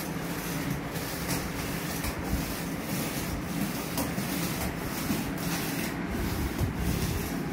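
Plastic quad roller skate wheels rolling on a ceramic tile floor: a continuous rolling rumble with small clicks here and there.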